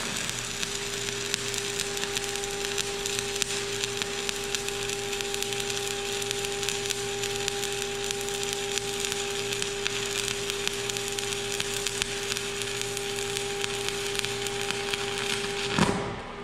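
Stick (shielded metal arc) welding with a 1/8-inch 7018 electrode: the arc crackles and sizzles steadily as a horizontal pass is run, then breaks off shortly before the end. A steady hum sits underneath.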